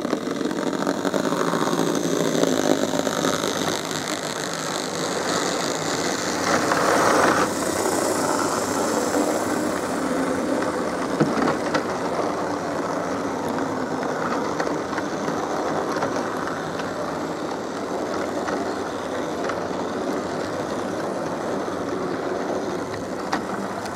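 Model Class 37 diesel locomotive and train running past on model railway track: a steady mechanical running sound with a few faint clicks from the track.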